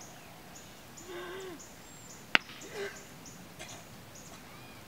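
Faint outdoor ambience with a brief, faint voice-like sound about a second in and again near three seconds. A single sharp click about two and a half seconds in is the loudest sound.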